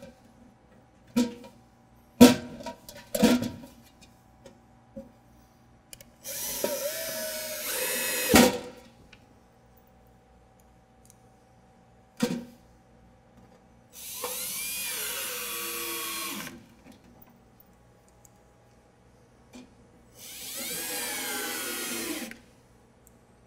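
Milwaukee M18 cordless drill/driver driving screws into wood studs in three runs of about two seconds each, its motor whine gliding up and down in pitch. Sharp knocks and clicks come between the runs, and a loud knock ends the first run.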